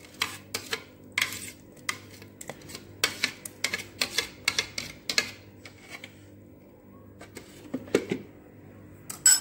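Kitchen utensils and containers clicking and clinking as blended onion purée is added to a pot of soup. A quick run of irregular clicks fills the first five seconds, then it goes quieter, with one sharp click near the end.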